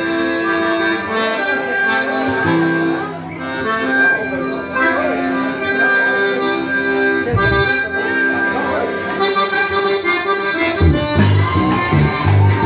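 Chamamé played live on two piano accordions, holding chords and melody over a strummed acoustic guitar. About eleven seconds in, a rhythmic low bass line comes in under the accordions.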